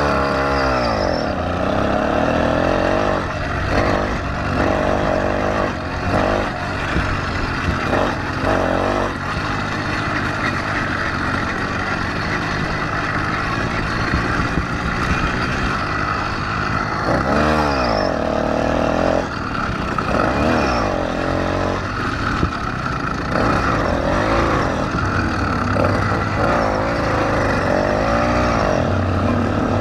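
Motorized bicycle's small engine running hard under way. Its pitch rises and falls several times as the throttle is opened and eased.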